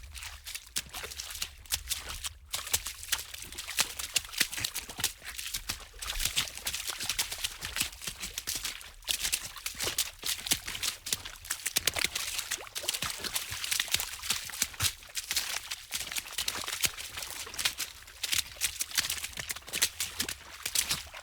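Water splashing fast: a dense, unbroken run of quick, irregular splashes and spatters over a faint low rumble.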